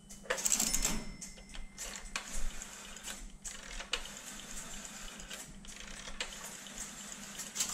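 Relays and crossbar switches of a Tesla UK11 crossbar telephone exchange clicking and clattering irregularly as the exchange sets up calls, over a steady low hum.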